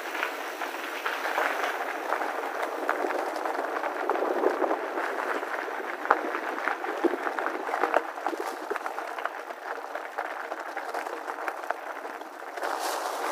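Mountain bike tyres rolling over loose gravel: a steady crunching crackle, dotted with small clicks of stones.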